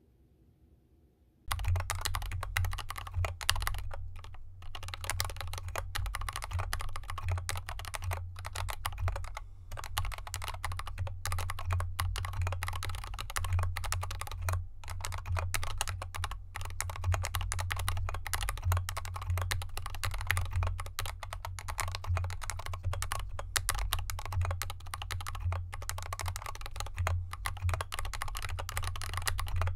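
Continuous fast typing on a mechanical keyboard with lubed Gateron Yellow linear switches and SA-profile keycaps in a foam-dampened aluminium case, set on a desk mat over felt fabric. The typing starts about a second and a half in and runs as a dense, unbroken stream of key strokes.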